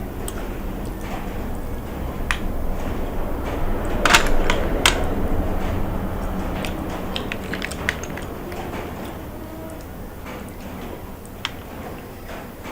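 Close-up eating sounds from a person eating spicy seafood: chewing with scattered sharp clicks and smacks, the loudest few about four to five seconds in.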